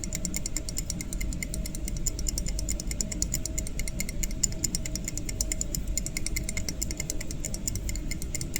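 A mechanism clicking rapidly and evenly over a low, steady rumble.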